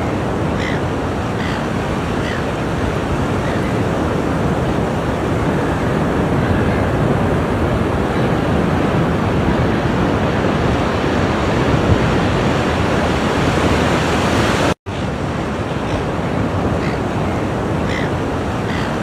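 Ocean surf rushing steadily and loudly onto the shore. The sound cuts out for an instant about fifteen seconds in.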